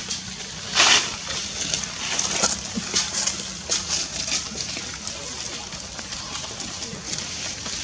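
Dry leaves crackling and rustling as monkeys move on them and handle them, with a louder crunch about a second in.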